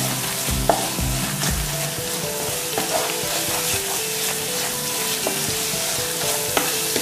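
Onion, tomato and spice masala sizzling in a non-stick pan as a wooden spatula stirs it, with a few sharp taps and scrapes of the spatula on the pan. The chilli, coriander and garam masala powders are frying until their raw smell goes.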